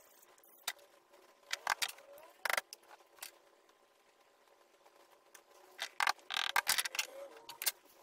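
Short scraping and clattering strokes from wooden parts and sandpaper being handled against a plywood box. They come in two clusters, about two seconds in and again from about six to seven and a half seconds in, over a faint steady hum.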